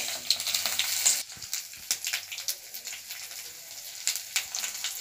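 Tempering spices hitting hot oil in a metal kadai: ajwain, panch phutan, dried red chillies and curry leaves. They sizzle and crackle, loudest for about the first second, then settle to a steady sizzle with scattered pops.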